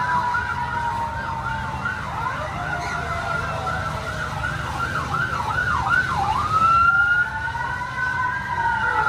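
Electronic toy fire-truck sirens sounding together, several at once. A fast yelp of about two or three sweeps a second runs over slower wails, then gives way about six and a half seconds in to slow rising and falling wails, over a steady low rumble.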